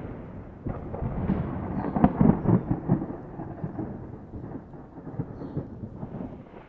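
Thunderstorm ambience: rain with rolling thunder rumbling, loudest about two seconds in and fading toward the end.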